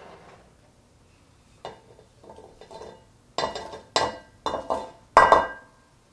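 Kitchenware clinking and knocking while fruit is prepared: a series of sharp clinks of dishes and utensils, each with a short ring, mostly in the second half, the loudest about five seconds in.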